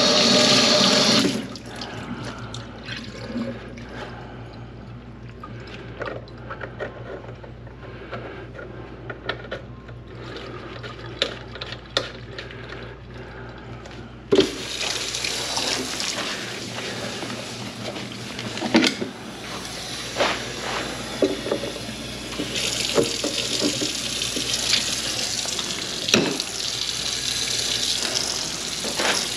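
Kitchen faucet running hard into a stainless steel sink and down the drain, cut back after about a second; scattered clicks and handling noises follow. About 14 s in, water runs and splashes in the sink again as gloved hands are rinsed, with a few sharp knocks.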